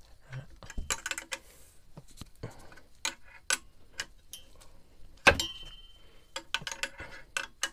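Wrench working on the upper alternator mounting bolt of a Yanmar 3YM30 marine diesel to tighten it: irregular metallic clicks and taps in quick clusters, with one loud clink about five seconds in that rings briefly.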